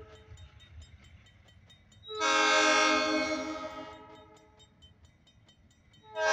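Diesel freight locomotive's multi-chime air horn blowing for a grade crossing: one long blast about two seconds in that trails off, and the next blast starting right at the end. Between the blasts a crossing bell rings steadily, with a low rumble of the train beneath.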